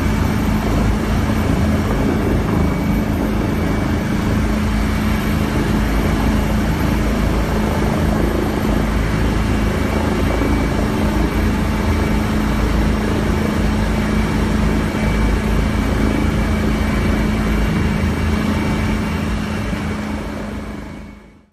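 Eurocopter EC135 twin-turbine helicopter running, heard from inside the cabin: a steady rotor and engine noise with a constant whine, fading out near the end.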